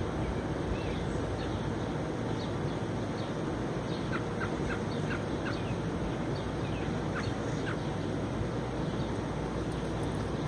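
Small birds chirping: a quick run of short high notes from about four to eight seconds in, over a steady low background rumble.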